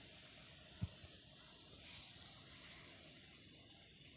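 Rava-coated brinjal slices frying in coconut oil on a tawa: a faint, steady sizzle, with a single low thump a little under a second in.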